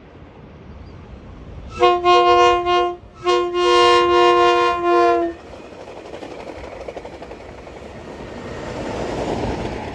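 COASTER commuter train's horn sounding two blasts, the first about a second long and the second about two seconds, a chord of several notes. Then the train's wheels on the rails as it passes close, the noise building to a peak near the end.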